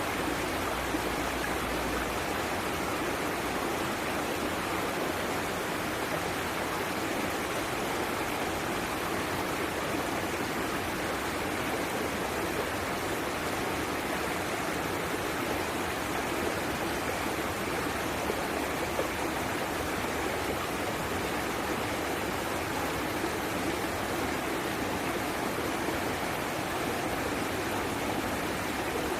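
Running water flowing in a steady, even rush.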